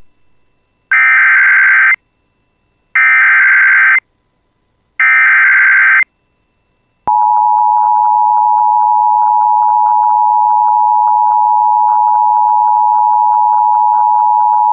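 Emergency Alert System signal announcing a severe thunderstorm warning: three one-second bursts of the SAME digital header, a buzzy data screech repeated two seconds apart. About seven seconds in comes the steady, single-pitched attention tone, held to the end.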